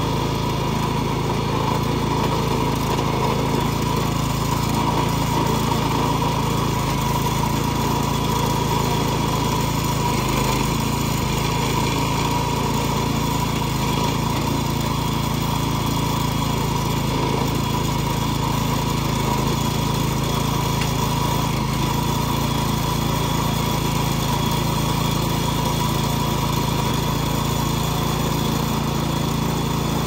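The small gas engine of a Harbor Freight towable backhoe running steadily, driving the hydraulics as the bucket digs.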